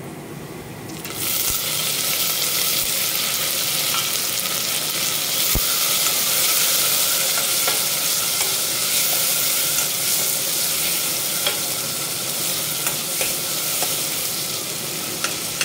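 Chopped tomatoes dropped into hot ghee with onions and spices in a stainless steel pressure cooker, sizzling loudly from about a second in and frying steadily while being stirred, with a few clicks of the spoon against the pan.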